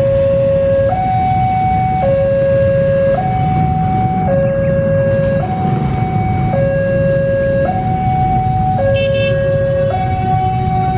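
Electronic two-tone warning alarm alternating steadily between a low and a higher note, each held about a second, over the low rumble of a train pulling away.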